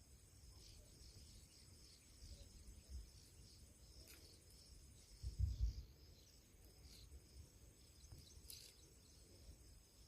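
Crickets trilling steadily, with a brief low thump a little past halfway.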